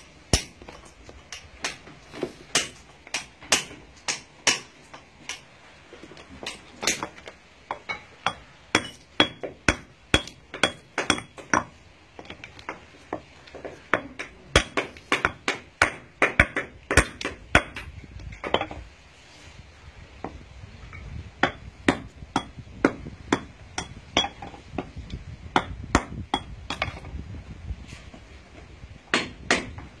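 Stonemason's hammer striking and chipping natural building stones to dress them: a run of sharp, irregular knocks, some with a short metallic ring, easing off for a couple of seconds past the middle.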